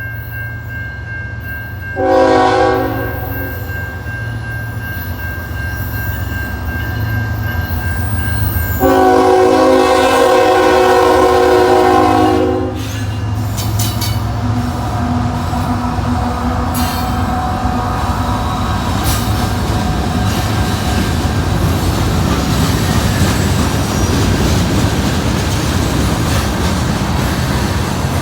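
CN freight train's diesel locomotive approaching a level crossing with a steady low engine rumble, sounding its horn in a short blast and then one long blast of about four seconds. The noise then swells as the train passes, with the clatter of wheels on rail joints.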